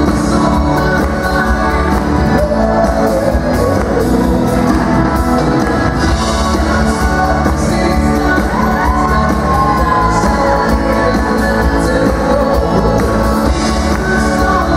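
Dance music with a singer and a steady beat, played loud throughout.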